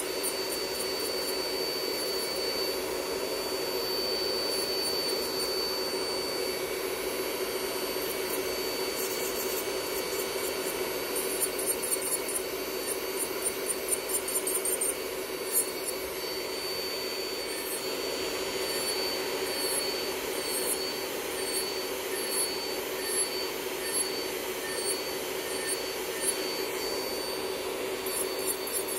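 Electric manicure drill with a ceramic bit running with a steady high whine as it grinds gel polish off the fingernails, the whine wavering in the second half, with scratchy grinding ticks around the middle. A nail dust extractor fan hums underneath.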